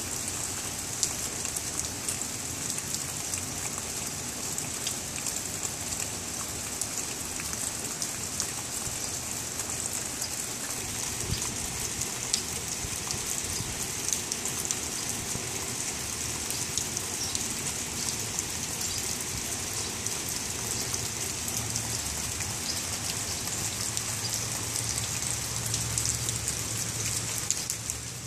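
Steady rain falling, a continuous even hiss with many sharp ticks of close drops throughout.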